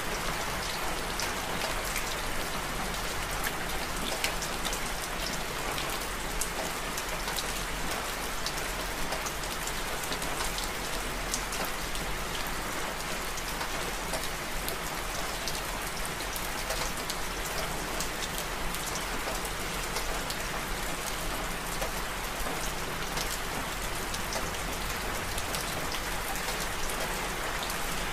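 Steady rain falling: a dense, even hiss of drops with scattered sharper drop ticks.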